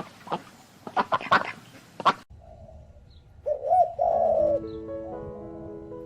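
A pigeon cooing in a two-part call, a short rise and fall then a held note, over background music with sustained notes. It follows a cut from a run of short rough calls about two seconds in.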